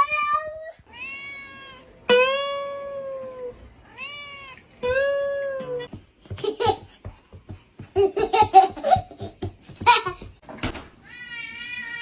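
Domestic cat meowing five times in a row, drawn-out calls that rise and fall in pitch. A stretch of short knocks and rustling follows, and steady music comes in near the end.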